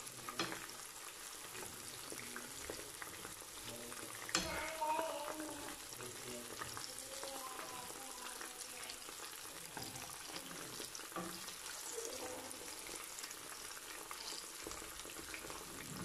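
Marinated chicken pieces sizzling and crackling in hot oil in a frying pan, with a steel spoon turning them over. There is one sharper knock about four seconds in.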